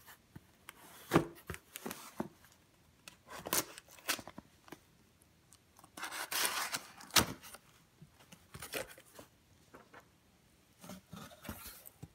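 A knife slitting packing tape along the seam of a cardboard mailer box, with scraping and rustling of the cardboard and a few sharp taps as the box is handled and opened. The longest stretch of cutting and tearing comes about six to seven seconds in.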